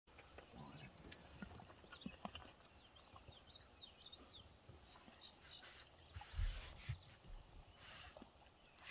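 Moose feeding in a pond, with water splashing and dripping as it lifts its head from the water. Small birds chirp rapidly through the first few seconds, and a low thump with a rush of noise comes a little past the middle.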